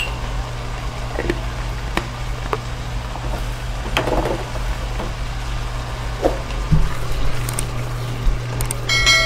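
Bok choy and mushrooms cooking in a wok over a steady low hum, with a few light clicks. A short electronic chime of several steady tones sounds near the end.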